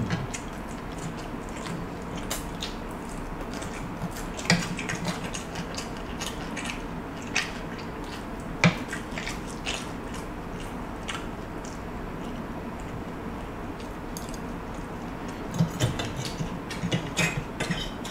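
Fork and spoon clinking and scraping against a ceramic plate while scooping red rice, in scattered sharp clicks that bunch up near the end, with chewing between them.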